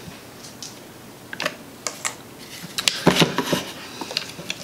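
Irregular plastic clicks and knocks as the grinder's plastic housing and switch assembly are handled and fitted together by hand, with a quick cluster of clicks a little after halfway.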